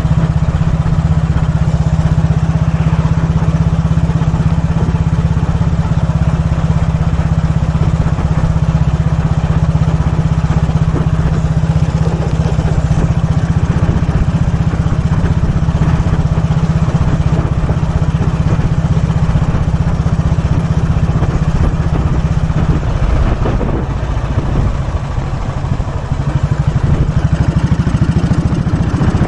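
1943 Royal Enfield WD/CO's 350cc overhead-valve single-cylinder engine running steadily under way. About three-quarters of the way through it eases off for a few seconds, its separate firing strokes coming through, then picks up again near the end.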